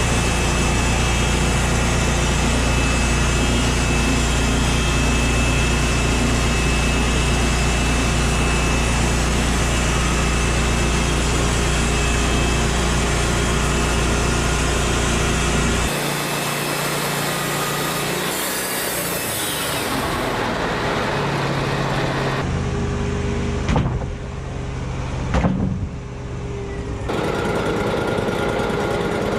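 An engine running steadily, with a strong low hum; after about halfway the sound changes abruptly several times and a couple of sharp knocks are heard.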